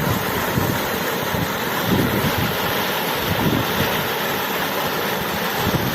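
Running water rushing steadily, with irregular low splashing and churning through it.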